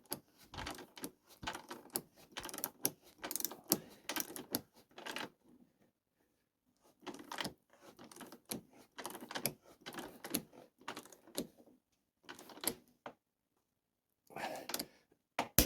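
Ratchet wrench clicking in quick runs of clicks with short pauses, as the 24 mm rear axle nut is tightened.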